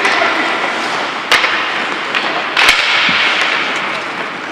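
Ice hockey play: two sharp puck impacts about a second and a half apart, over a steady scraping haze of skates on the ice.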